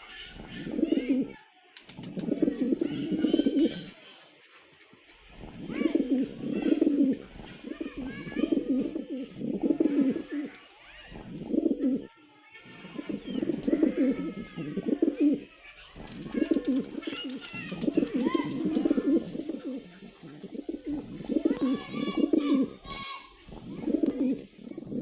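Pigeons cooing in repeated low phrases of about a second each, one after another with short pauses, with thinner higher chirps over them at times.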